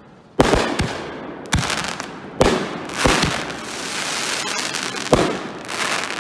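Consumer aerial firework shells going off in quick succession: about half a dozen sharp bangs, each trailing a long rolling echo that runs into the next.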